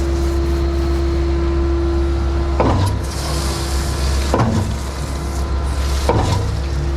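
Skid-steer-powered Mud Demon concrete pump running steadily while pumping concrete, with a clunk about every second and three quarters as the pump shifts stroke, three times.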